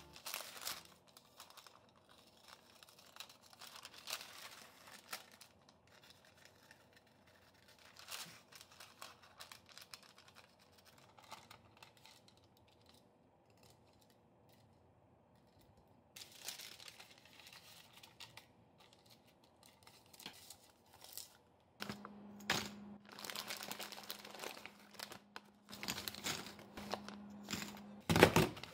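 Baking paper rustling, crinkling and tearing in scattered short spells as it is cut and fitted into a round cake tin. Near the end the rustling gets denser and a steady low hum comes in under it.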